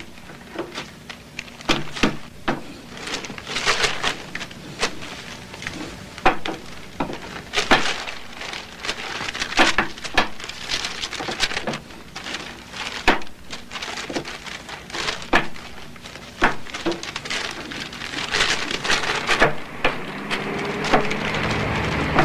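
Paper sheets rustling and crackling as they are handled and shuffled on a desk, in an irregular run of sharp crinkles with a few light knocks.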